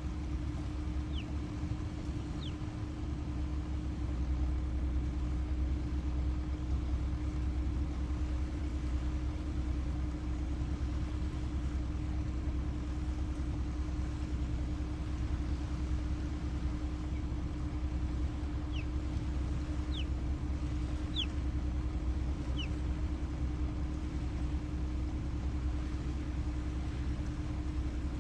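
A steady low mechanical hum and rumble, with a few short, falling high chirps: two about a second or two in and four more around two-thirds through.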